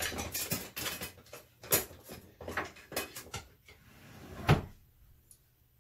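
Irregular knocks and clatter of a kitchen drawer and cupboard being opened and rummaged through, with two sharper bangs, the loudest about four and a half seconds in.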